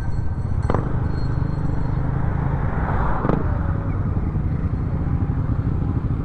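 Motorcycle engines running at low speed as the group rolls along slowly and pulls up, a steady low rumble, with two short clicks, one about a second in and one about three seconds in.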